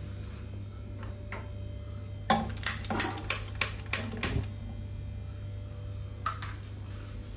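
Hand-held piezo gas lighter clicking about eight times in quick succession, about four a second, to light a gas stove burner.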